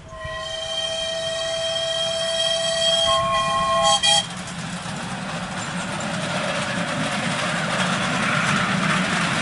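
Miniature steam locomotive's whistle blowing a steady chord for about four seconds, some of its notes shifting near the end. Then the rumble of the train coming through the tunnel grows steadily louder.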